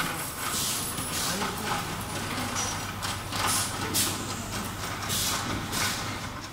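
Cable-assembly workshop ambience: machinery giving a steady low hum, with irregular clattering and hissing noises on top.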